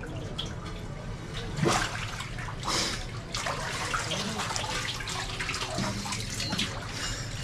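Strong current of water rushing steadily through a concrete sluice channel, with a couple of louder splashes as a person wades and moves about in it.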